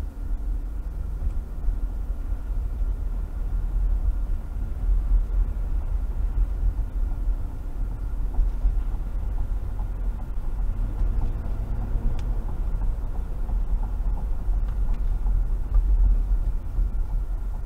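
Car driving on a wet road, heard from inside the cabin through a dashcam: a steady low rumble of engine and tyres on wet pavement.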